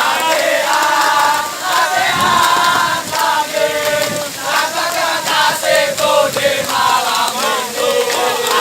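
A group of student-regiment cadets singing a marching song loudly in unison, half sung and half shouted.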